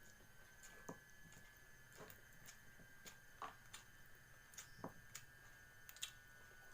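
Near silence with a faint steady high-pitched hum and scattered soft clicks and ticks, one or two a second.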